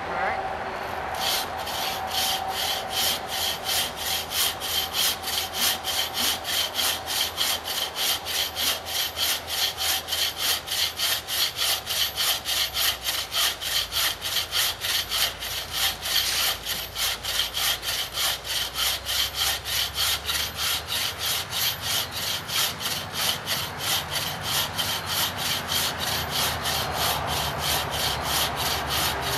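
Folding bucksaw cutting through a log with fast, even back-and-forth strokes, about three a second, starting about a second in.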